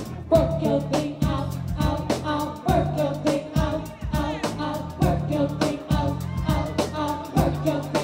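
Live soul-funk band playing with a steady beat: a woman singing lead over drum kit, electric guitar and a low bass line.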